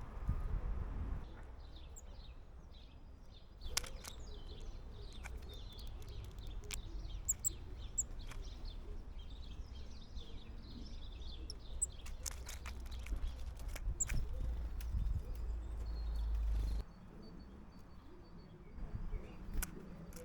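Small garden birds chirping and twittering at a seed feeder, with scattered sharp taps and clicks. A low rumble runs underneath and cuts off suddenly near the end.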